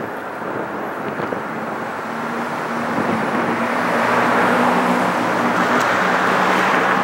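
Vehicle noise: a steady low engine hum under a broad rushing sound that grows louder, peaking around four to six seconds in.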